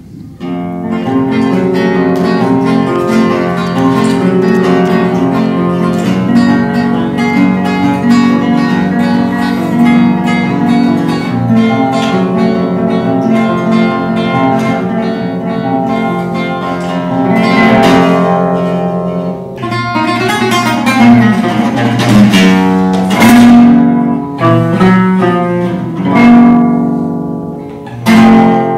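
Solo flamenco guitar (nylon-string Spanish guitar) playing, picking flowing melodic lines. From about two-thirds of the way in, loud strummed chords break in between the runs.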